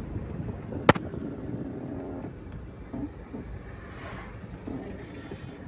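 Steady road and engine noise from a moving vehicle, with one sharp knock about a second in.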